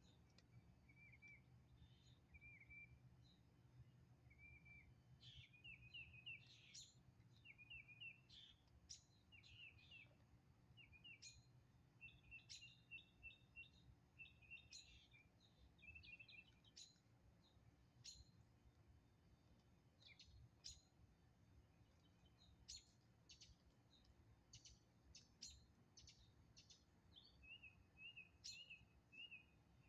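Faint birdsong: small birds chirping in short repeated notes and quick rising whistles, over a faint low rumble.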